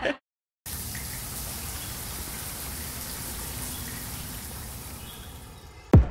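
Steady hiss of water spraying down from a shower, fading a little, cut off near the end by a single sudden, loud deep hit.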